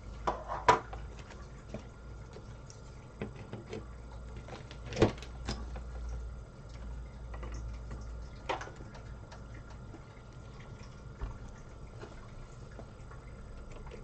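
A graphics card being pulled from and fitted into a motherboard's AGP slot by hand: scattered sharp clicks and knocks of the metal bracket and the plastic slot. The loudest come under a second in and about five seconds in.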